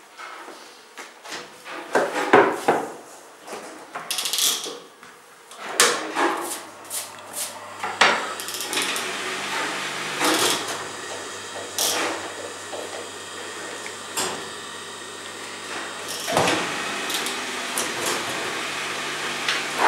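Wooden honey frames knocking and clattering against the steel rim and cassettes of a large radial honey extractor as they are loaded into it. A steady low hum sets in about four seconds in.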